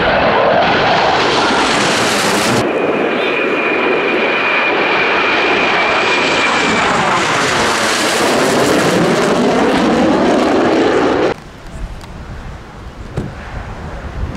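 Blue Angels F/A-18 Super Hornet jets passing overhead in formation: a loud jet roar with sweeping rising and falling tones as they go by. About eleven seconds in it cuts off suddenly to a much quieter, distant jet sound.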